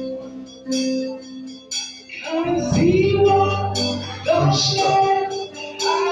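Worship music with a steady beat of about one stroke a second, held chords and bass, and a voice singing from about halfway through.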